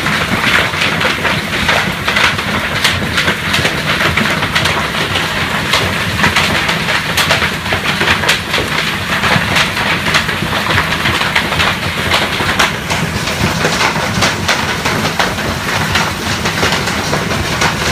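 Golf-ball-sized hailstones pelting down in a dense, continuous clatter of sharp impacts.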